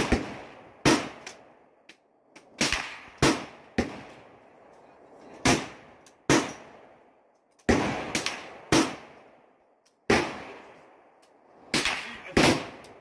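AK-pattern rifle firing single shots in steady succession, over a dozen in all, spaced about half a second to a second and a half apart, each with a short echoing tail.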